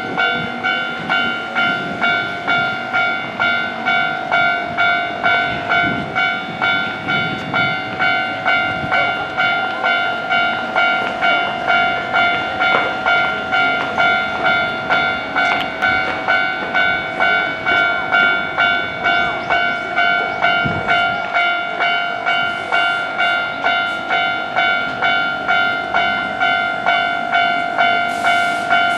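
Japanese railway level-crossing alarm ringing: an electronic bell tone repeating in an even rhythm, a little under two dings a second, each stroke fading before the next. A brief hiss comes near the end.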